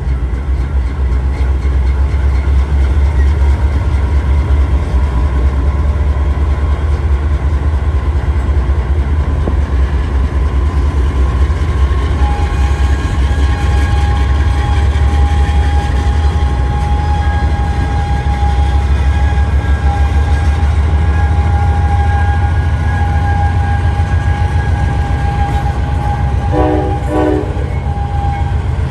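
Freight train rolling past with a heavy, steady low rumble. A thin, steady high whine runs from about twelve seconds in, and a short double blast of several tones sounds near the end.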